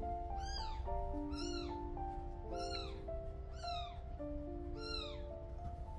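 Newborn kitten mewing, five short high cries about a second apart, each rising and then falling in pitch. Background music with a slow stepwise melody plays underneath.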